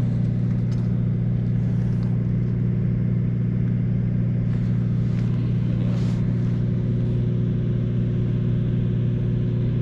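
Steady low machine hum that holds the same pitch and level throughout, with a few faint ticks.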